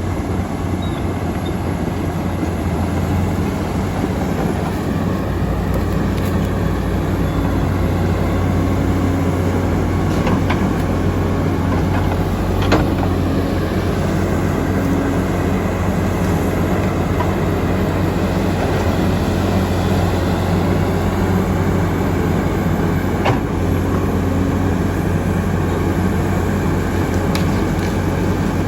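Komatsu D85EX crawler dozer's diesel engine running steadily under a constant mechanical drone, with a few sharp clanks.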